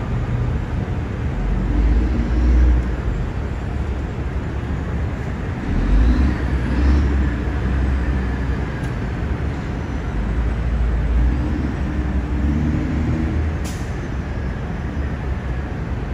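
City street traffic: a steady low engine rumble from passing vehicles, swelling as heavier vehicles go by a couple of times, with a single sharp click near the end.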